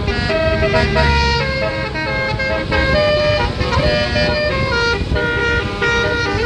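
Bus 'telolet' Basuri musical air horn playing a melody: several horn tones sounding together and stepping from note to note, over a low engine rumble.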